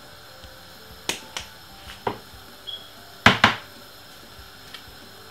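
Handling a spice jar while shaking ground cinnamon into a pot: a few sharp clicks and taps, the loudest a quick double click a little past three seconds in.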